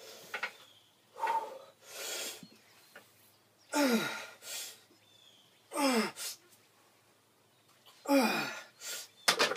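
A weightlifter's forceful breathing and strained grunts under a maximal 420-pound bench press: short sharp breaths in the first couple of seconds, then three long groans, each falling in pitch, about two seconds apart. A few sharp clicks near the end.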